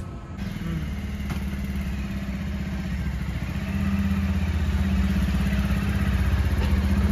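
Motorcycle engine running at low revs with a steady hum as the bike rolls slowly forward, getting a little louder about halfway through.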